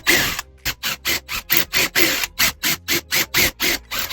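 Quick, even rasping strokes of a tool working wood, about six or seven a second, with a brief break about half a second in.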